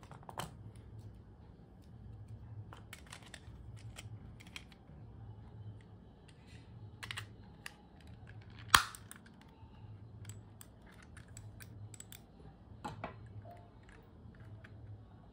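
Scattered light plastic clicks and taps as a wireless laser mouse's shell is handled and fitted back together, with one loud sharp click about nine seconds in.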